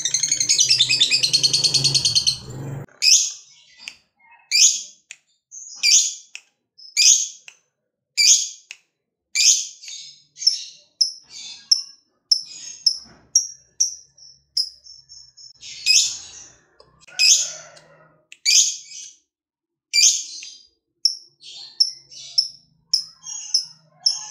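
Fischer's lovebird calling: a fast chattering trill that breaks off about three seconds in, then a run of sharp, shrill chirps about one a second, with shorter, softer tweets between them.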